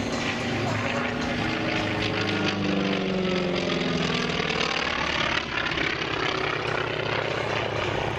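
North American T-28 Trojan's radial engine and propeller running at power through an aerobatic pass. The engine note falls in pitch as the aircraft goes by, about three to five seconds in.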